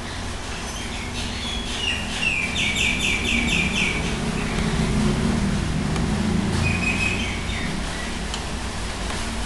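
Background chirping: a quick run of about seven repeated high notes in the first half, then a shorter chirp a few seconds later, over a steady low hum and a low rumble that swells in the middle.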